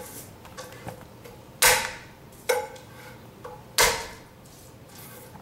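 Three sharp whacks, with a smaller knock between the second and third, as a palm slaps the flat of a chef's knife blade down on garlic cloves on a wooden cutting board, crushing them so the skins come off. Each whack is followed by a short metallic ring from the blade.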